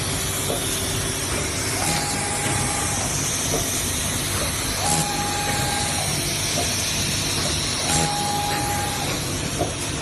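ZK-660D puzzle box making machine running: a steady hiss and mechanical clatter, with a tone about a second long that comes back about every three seconds, and knocks at a similar spacing.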